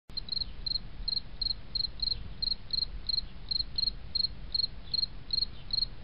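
Insect chirping in a steady rhythm, about three short high chirps a second, over a low rumble.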